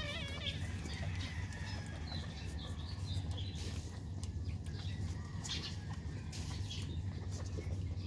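Newborn Shih Tzu puppies nursing: a puppy's wavering high whine trails off just after the start, then faint squeaks and short clicks over a steady low hum.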